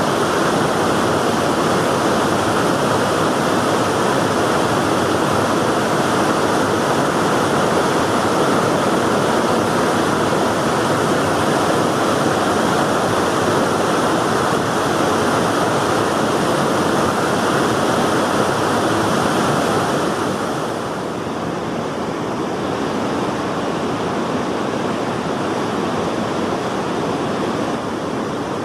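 Steady rush of river water pouring over the headworks weir, a dense even hiss with no rhythm. About two-thirds of the way through it drops a little in level and loses some of its high end.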